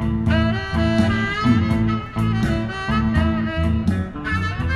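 Background music: a saxophone-led jazz tune.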